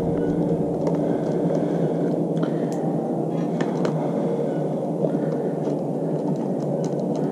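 A steady low hum and rumble, with scattered light clicks of a wrench or socket on metal as the nuts holding the bath fan motor to its mounting plate are worked at.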